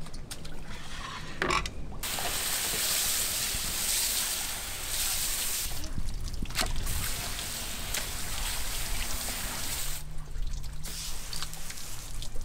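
Garden hose pistol-grip spray nozzle spraying water over a salted octopus, rinsing it off at the fillet table. The spray starts about two seconds in, stops briefly near the end, and starts again.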